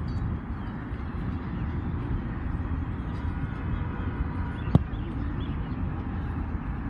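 Low, gusty rumble of wind buffeting a handheld phone's microphone, with one sharp knock about two-thirds of the way through.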